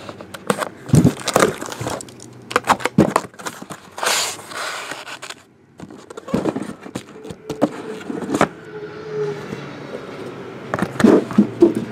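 Cardboard shipping case being handled and opened: scraping and rustling of cardboard, with repeated sharp knocks as the shrink-wrapped card boxes are lifted out and set down on a table.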